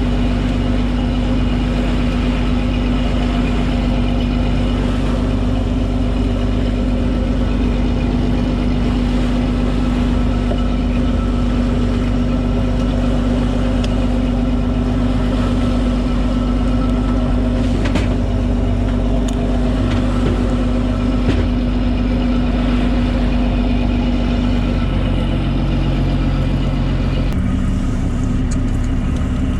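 Boat engine running steadily with a constant drone, a few faint clicks in between; the engine note shifts near the end.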